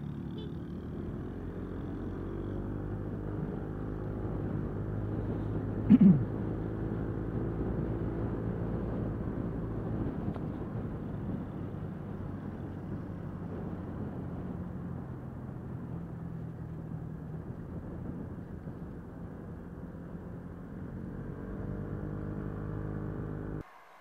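A small motorcycle's engine running under way, its pitch drifting slowly up and down with speed, with road noise, heard through a helmet camera's stock microphone wrapped in extra foam and tape, which keeps out wind noise and leaves the sound muffled. A short, louder sound breaks in about six seconds in.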